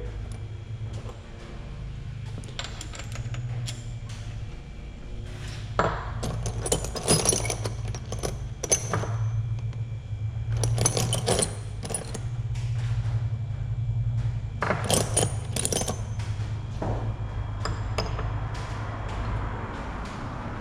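Metal engine parts and fasteners clinking and being handled, in scattered sharp clicks and clinks, over a steady low hum.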